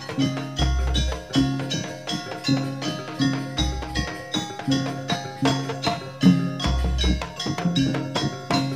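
Live jaranan gamelan music amplified through a sound system: a fast, even rhythm of struck metal keys and drums, with a deep low note sounding about every three seconds.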